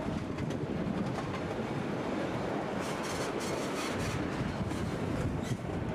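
Narrow-gauge passenger train running on the track, heard from aboard a coach: a steady rumble of wheels on rail, with a run of clicks about halfway through and another click near the end.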